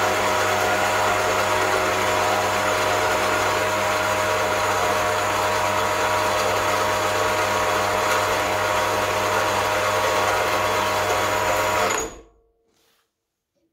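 Axminster MCB115SHD metal-cutting bandsaw running, its electric motor and blade drive making a steady mechanical hum with a hiss over it. The sound stops abruptly near the end.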